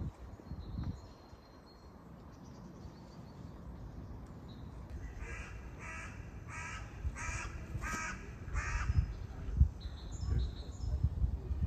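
A crow cawing six times in quick succession, a little under half a second apart, with low thuds underneath that become more frequent near the end.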